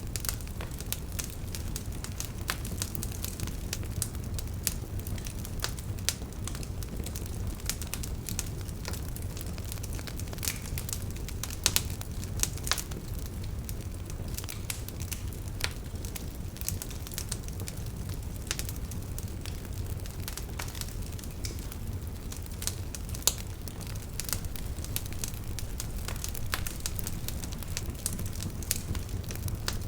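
Wood fire crackling in a fireplace: a steady low rumble of flames with irregular sharp pops and snaps, a few louder ones standing out.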